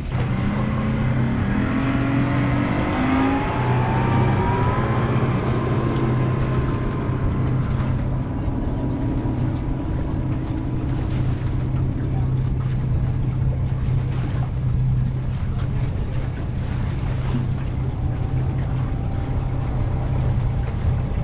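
A motorboat's engine speeding up, its whine rising over the first few seconds, then running steadily at cruising speed.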